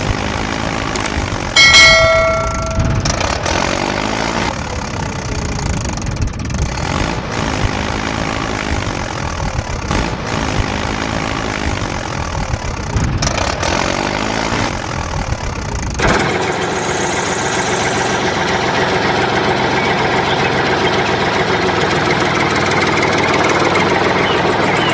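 A small vehicle engine running unevenly, with a brief horn-like tone about two seconds in. At about sixteen seconds the sound cuts abruptly to a different, steadier background.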